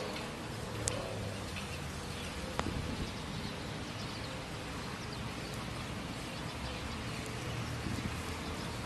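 Steady outdoor background noise with a low hum, broken by two sharp clicks about one and two and a half seconds in and a few faint, high chirps.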